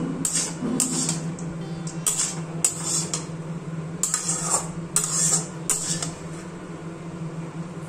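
Metal spatula scraping and stirring poha in a metal kadai: a run of irregular scrapes that thins out after about six seconds, over a steady low hum.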